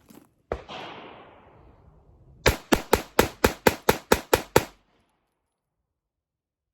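Ruger LCP2 .22 LR pistol firing CCI Stinger rounds in a rapid-fire string. There is one sharp report about half a second in, then after a pause about ten shots in quick succession, roughly four to five a second, before it stops.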